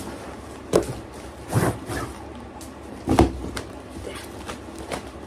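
Handling noise from a packaged item being lifted out of its parcel: several sharp knocks and bumps with rustling, the loudest about three seconds in.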